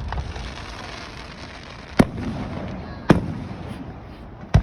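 Fireworks going off: three loud bangs, about two seconds in, a second later and near the end, over a continuous background rush of noise.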